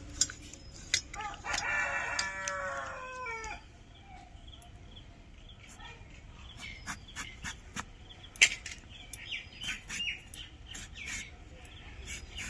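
A rooster crows once, starting about a second and a half in: a call of about two seconds that drops in pitch at the end. Scattered sharp clicks and taps sound around it.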